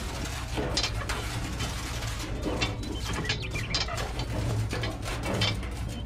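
Scattered light plastic clicks and taps as the hinged side boards of a toy tractor trailer are folded open by hand, over a steady low hum.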